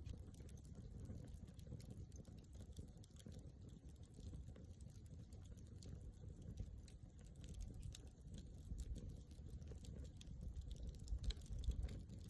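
Wood campfire crackling softly: scattered small pops and snaps, irregular and never stopping, over a low rumble.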